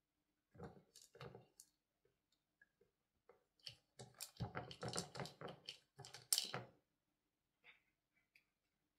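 Quick runs of light plastic clicking and clattering as a cat nudges clear plastic domes on a pegged plastic treat puzzle board. A short run about half a second in, then a longer, busier run from about three and a half to seven seconds.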